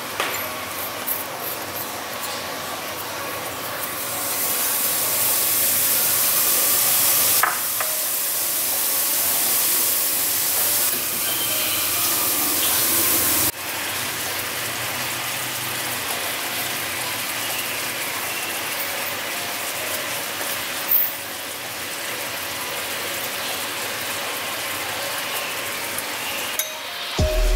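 Sugar-and-water syrup sizzling and bubbling in a steel wok over a gas flame as it boils on its way to caramel. The hiss grows louder about four seconds in and drops suddenly twice, at about seven and thirteen seconds.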